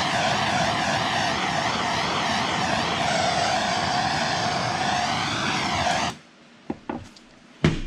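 Gas torch flame running steadily, a loud hiss with a warbling whistle over it, as it chars a wooden axe handle. The flame cuts off suddenly about six seconds in, leaving a couple of faint clicks.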